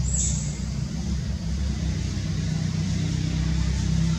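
Steady low hum of an idling engine, holding an even pitch throughout.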